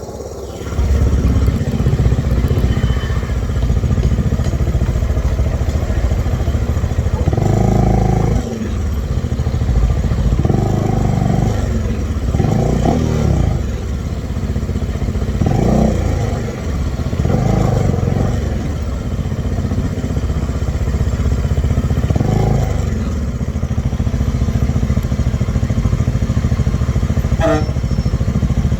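Bajaj Dominar 400's single-cylinder engine idling, blipped through about six short revs.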